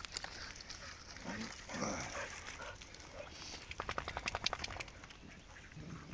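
Dogs playing at muddy water, with a short dog vocal sound about two seconds in and a quick run of sharp clicks around four seconds in.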